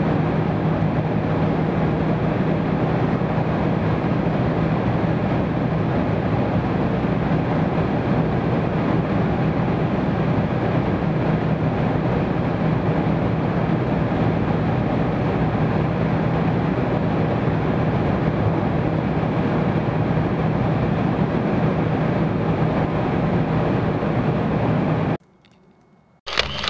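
Steady road and engine noise inside a moving car, an even drone with a low hum. It cuts off abruptly near the end, followed by a brief sharp noise.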